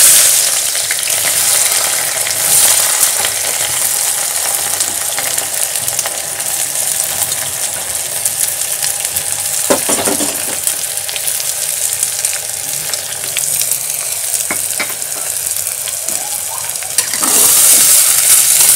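Sliced onions sizzling as they go into hot mustard oil in an aluminium pressure cooker, with a few short clinks of spoon and bowl about ten seconds in. The sizzle gets louder near the end as the onions are stirred.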